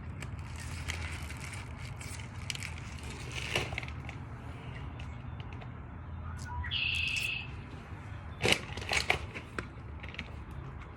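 Scattered clicks and knocks of doorbell parts being handled, over a steady low hum, with a short high electronic beep about seven seconds in.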